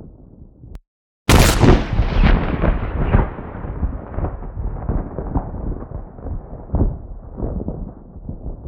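Synthetic thunder sound effect made from a clothing-rustle recording processed with the DopplerPRO plugin. A low rumble fades out, and after a short gap a sharp thunderclap about a second in rolls into a long low rumble with repeated swells, its crackle dulling over several seconds.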